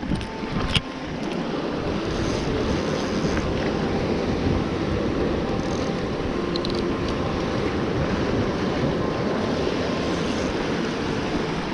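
Surf washing over lava rocks, a steady rush of noise, with wind buffeting the microphone.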